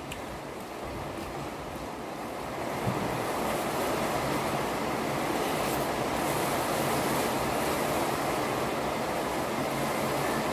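Steady rushing noise of storm wind and rain, growing louder about three seconds in.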